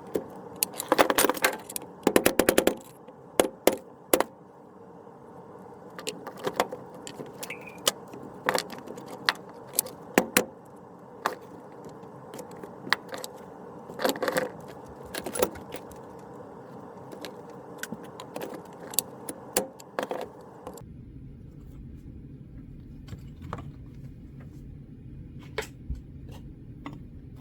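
Irregular sharp metallic taps and clinks, some in quick clusters, from a brass punch struck with a mallet against a Gewehr 88 rifle receiver stuck in cured Acraglas bedding, working it loose from the stock.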